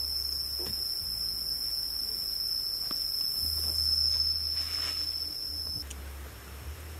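Cicadas droning in one steady, high-pitched tone that cuts off abruptly near the end, with a few faint knocks.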